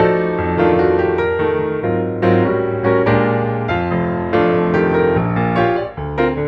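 Piano or electric-piano music: chords and melody notes struck and left to ring.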